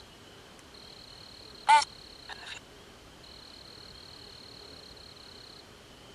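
Night insects trilling in a steady high note that runs in long stretches, broken by short gaps. About two seconds in comes one short, loud pitched call, followed by a couple of fainter blips.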